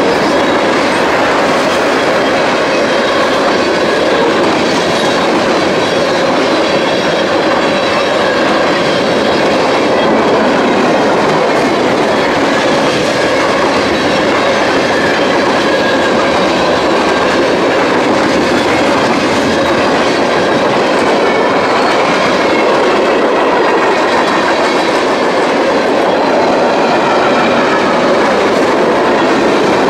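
Freight train's tank cars and flatcars rolling past at close range: wheels running on the rails, loud and steady.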